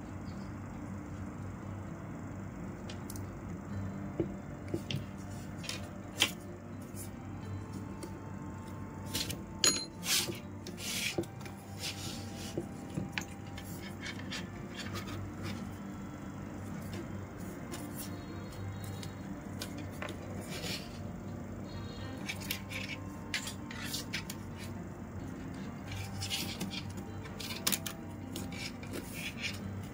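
Plastic rattan strands clicking, tapping and rubbing as they are woven by hand: irregular sharp ticks, some in quick clusters, over a steady low hum.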